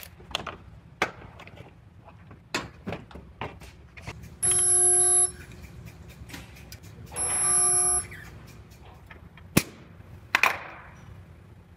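Resistance spot welder firing two welds about three seconds apart, each a steady humming tone lasting under a second, joining a headlight mounting bracket to the radiator support. Sharp clicks and knocks from handling the welder gun and parts come between, with two loud clicks near the end.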